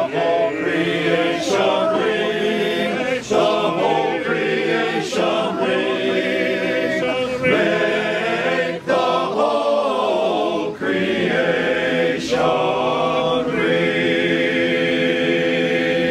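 A group of voices singing a carol in harmony, in sung phrases with short breaks between them, ending on a long held chord near the end.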